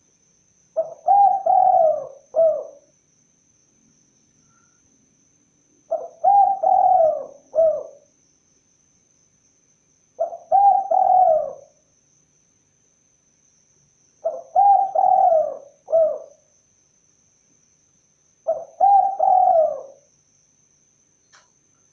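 Spotted dove (tekukur) cooing: five phrases about four seconds apart, each a run of three or four low coos with the last note set slightly apart.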